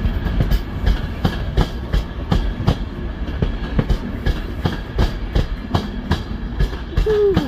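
Passenger coaches running past along a platform: a steady low rumble with the wheels knocking over rail joints in an even clickety-clack of about three knocks a second. A short falling tone sounds near the end.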